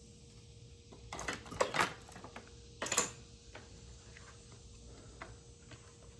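Handling noise from lawnmower repair: a quick run of knocks and clicks about a second in, one loud sharp knock about three seconds in, then a few light ticks, over a faint steady hum.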